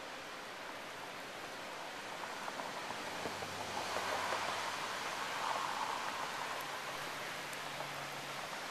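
Steady hiss of heavy rain from a thunderstorm, swelling a few seconds in and easing a little near the end.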